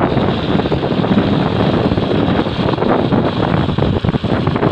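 Steady wind buffeting the microphone of a moving motorcycle, mixed with the motorcycle running along a wet road.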